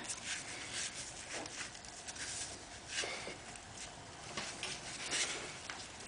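Faint rubbing and scuffing as gloved hands work a carburetor onto its rubber intake boot, with a few soft scrapes scattered through.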